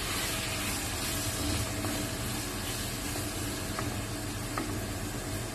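Chopped tomatoes sizzling in a hot pan, a steady hiss over a low hum, as a spatula stirs them with a couple of light taps about four seconds in.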